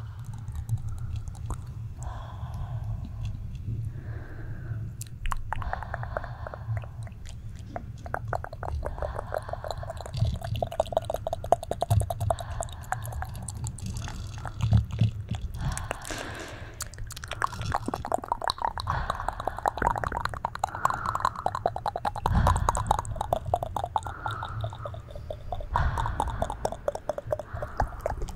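Close-microphone ASMR mouth sounds: dense wet clicks and smacks of lips and tongue, layered over one another, over a low steady rumble.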